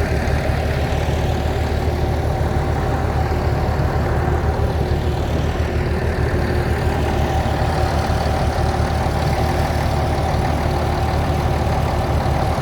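Water well drilling rig running steadily: a heavy engine drone with a constant higher whine over it, unchanging throughout.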